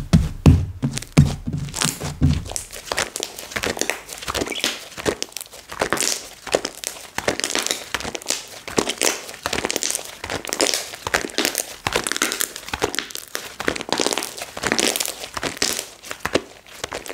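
Slime being squeezed, stretched and poked by hand, giving a dense run of small crackles and popping clicks, with a few low thuds in the first two seconds.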